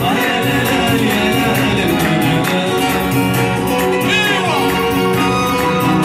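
Live Amazigh folk music played through loudspeakers: acoustic guitar and a steady hand-percussion beat, with singing.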